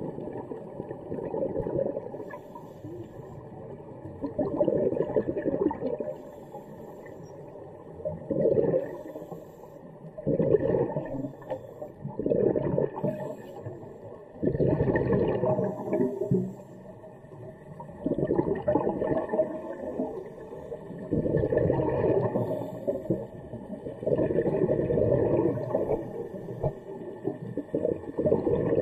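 Scuba diver breathing through a regulator underwater: exhaled bubbles gurgle in bursts of one to two seconds, repeating every few seconds.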